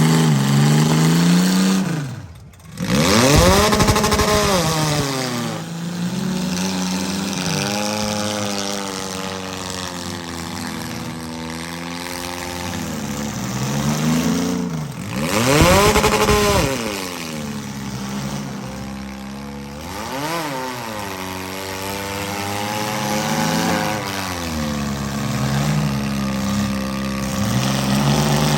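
Demolition derby cars' engines running, with revs rising and falling again and again, the loudest about four and sixteen seconds in. The sound briefly cuts out about two seconds in.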